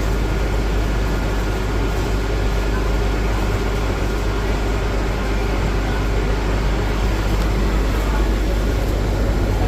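Steady low rumble and hiss of a transit bus idling with its air conditioning running.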